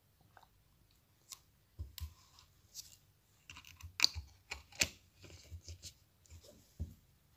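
Thin plastic water bottle being handled: irregular sharp clicks and crinkles of the plastic, the loudest about four seconds in.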